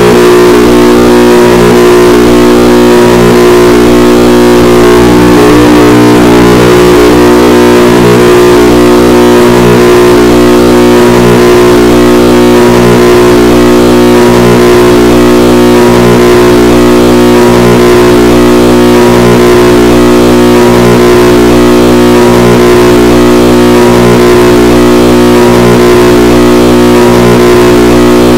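Tuba music boosted until it is heavily distorted and clipped at full volume: a dense stack of droning tones pulsing in a regular repeating rhythm.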